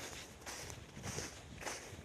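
Boots walking on snow: several footsteps in a row.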